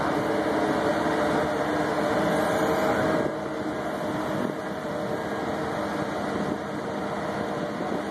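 Marine travel lift's engine running steadily, a droning hum with a few held tones; it gets a little quieter about three seconds in.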